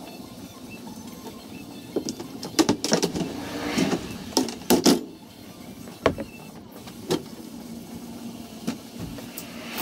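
Wooden OSB crate lid being lifted off a shipping crate: a run of sharp knocks and scraping of wood on wood about two to five seconds in, then a few single knocks.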